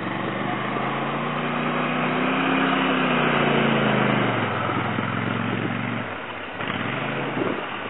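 Quad bike engine revving as it drives past close by, its pitch rising and then falling, fading out about six seconds in, over a steady hiss.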